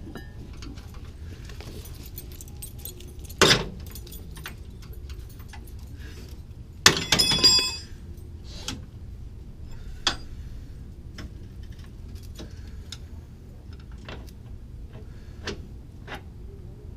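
Hand tools and metal parts clinking and clanking during suspension work, with two louder metal clanks about three and a half and seven seconds in, the second ringing briefly. A steady low hum runs underneath.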